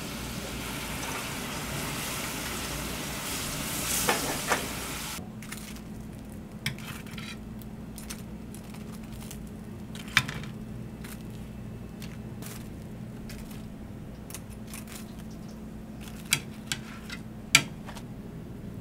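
Sweet and sour sauce sizzling and bubbling hard in a nonstick wok for about five seconds, with two sharp clinks near the end. Then the sizzle cuts off to a steady low hum, with a few scattered sharp clinks and knocks of dishes and utensils.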